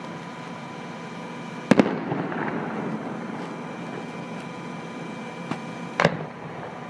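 Aerial fireworks shells bursting: two sharp booms about four seconds apart, the first about two seconds in and the second near the end, each followed by a rumbling echo, with a fainter pop shortly before the second.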